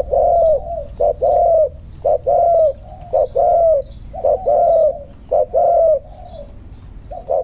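Spotted dove cooing: a short note then a longer arching coo, the pair repeated about once a second.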